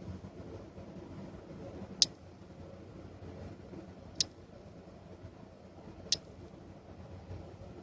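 Four sharp single clicks, evenly spaced about two seconds apart, over a low steady hum.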